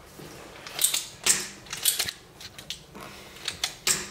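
Small hand tools being picked up and handled: half a dozen sharp, irregular clicks and light clatters.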